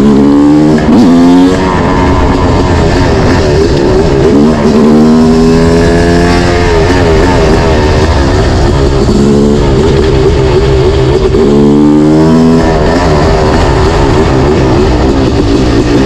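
Yamaha YZ250 two-stroke single-cylinder engine being ridden hard, revving up through the gears: its pitch climbs and drops back at each shift, about four times.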